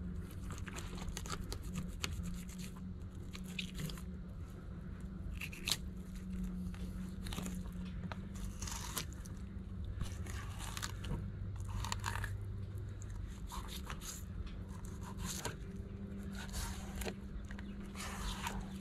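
Fillet knife slicing a flounder fillet off along the backbone, with irregular short crunches and scrapes as the blade cuts over the bones, over a steady low hum.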